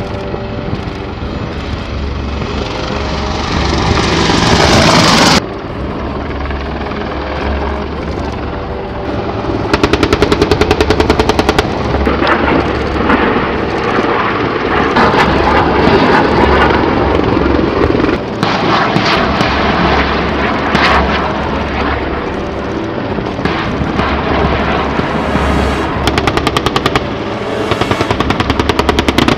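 AH-64 Apache attack helicopters flying, with steady rotor and turbine noise; a rising rush cuts off suddenly about five seconds in. Long bursts of rapid automatic gunfire come about ten seconds in and again near the end.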